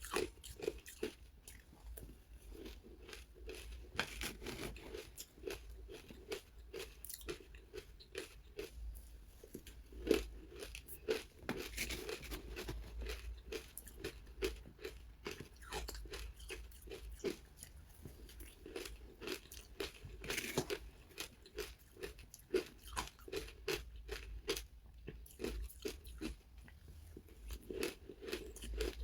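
Close-miked crunching and chewing of powdery frozen ice with matcha powder: many quick, irregular crunches with occasional louder bites.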